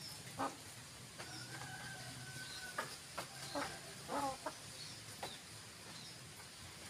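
Domestic hen clucking a few times, with one longer held call and a short wavering cluck, among faint high chirps and a few sharp clicks.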